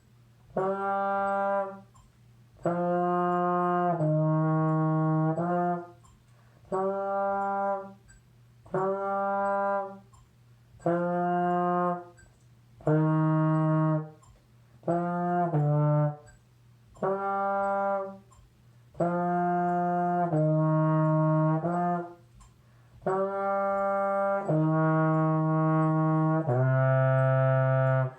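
Solo trombone playing a slow passage of sustained notes in short phrases, with brief breath pauses between them and a long low note near the end. A faint metronome clicks steadily at 88 beats per minute underneath.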